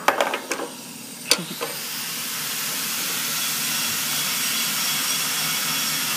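A few sharp metal clinks as the remains processor's steel drive socket is pried loose and handled, then a steady rushing hiss that swells over a couple of seconds and holds.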